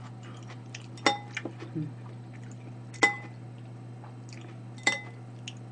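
Metal spoon clinking against a ceramic bowl of porridge as it is scooped: three ringing clinks about two seconds apart, with a few fainter taps between.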